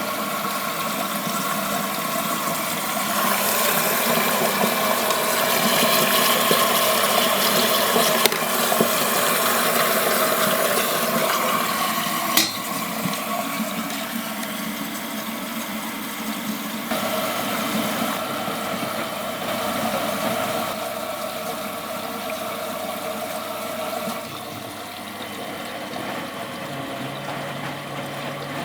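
1993 Miele Professional WS 5426 washing machine partway through its cycle: water rushing and sloshing over a steady mechanical hum. A sharp click comes about twelve seconds in, and the sound shifts in steps later on.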